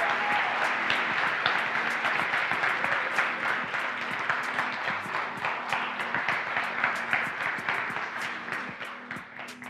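Congregation applauding, dense clapping that slowly dies down near the end.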